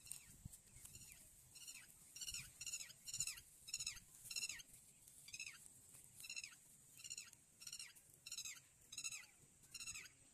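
An animal's high-pitched calls: short cries that each slide downward in pitch, repeated steadily about twice a second.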